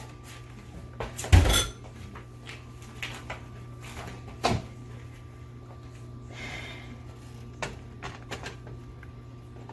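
Kitchen handling sounds over a steady low hum: a heavy thump about a second and a half in, a sharper knock a few seconds later, then a few faint clicks.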